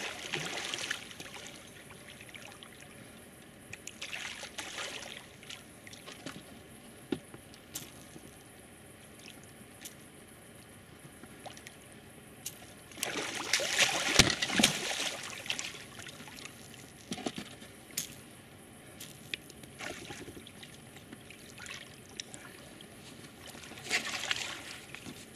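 Water splashing and sloshing in several bursts, the longest and loudest about halfway through: a hooked wels catfish thrashing at the surface beside the boat.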